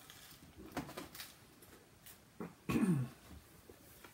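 A person eating: a few faint mouth clicks, then a short low vocal sound falling in pitch, with the mouth closed, about three seconds in.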